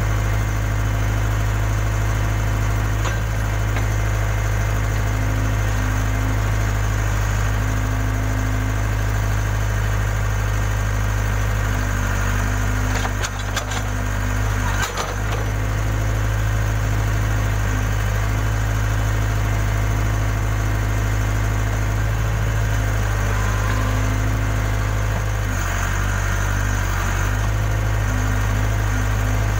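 Case 580K backhoe loader's diesel engine running steadily, with a short clatter of knocks about halfway through.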